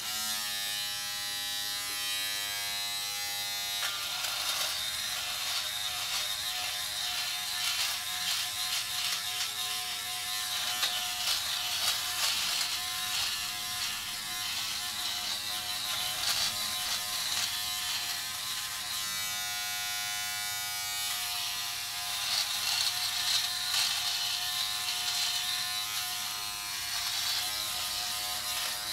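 Philips Norelco Multigroom 7000 electric trimmer switching on at the start, then buzzing steadily as it is run over the face and neck, cutting thick stubble.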